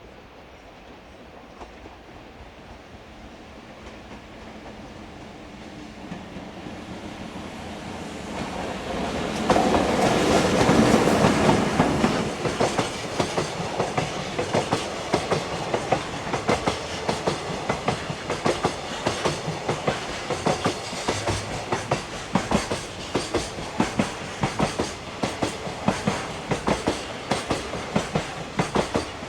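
An electric train approaches, growing steadily louder, and passes close by about ten seconds in. Its wheels then clatter over the rail joints in a long, regular clickety-clack as a long string of cars keeps rolling past.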